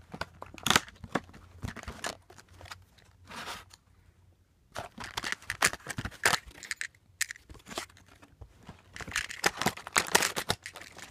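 Stiff clear plastic blister packaging of diecast toy cars crinkling and crackling as it is pried open and the cars are worked out. Irregular crackles and clicks, with a brief lull about four seconds in.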